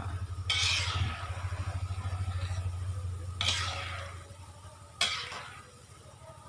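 A metal spatula scrapes and knocks against a wok as strips of tapioca dough are stirred in frying oil. There are two scraping strokes and a sharp knock about five seconds in. A low pulsing hum, like an engine, runs under the first four seconds and fades out.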